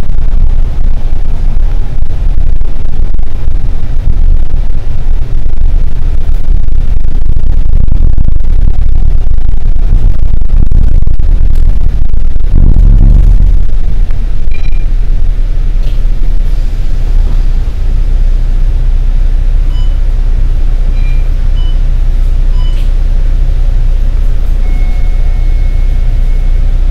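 Bus heard from on board: a loud, steady low engine and road rumble while driving, with a stronger low surge about halfway as it pulls in to a stop. After that it runs a little quieter, with faint short beeps and a steady high tone near the end.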